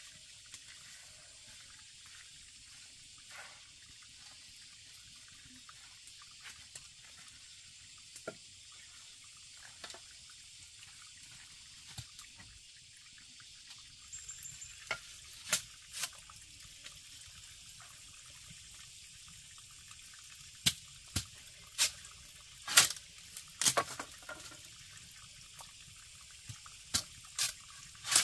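A machete striking and shaving a thin bamboo stick. Sharp knocks start about halfway through, some single and some in quick pairs, over a soft steady hiss.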